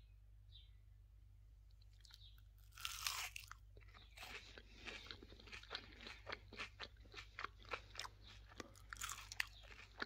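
Someone bites into a crisp fried zulbia about three seconds in, the loudest moment, then chews it with a run of crunchy crackles.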